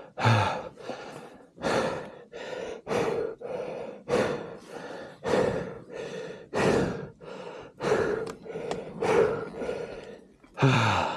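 A man breathing hard and fast, out of breath after heavy exertion, with rapid, noisy breaths two to three a second.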